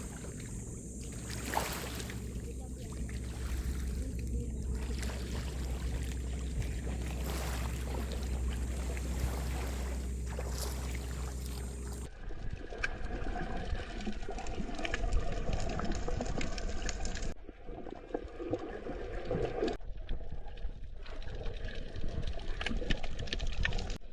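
Water sloshing and splashing in irregular bursts, after a stretch of steady low hum under a noisy wash; the sound changes abruptly several times, as at edits.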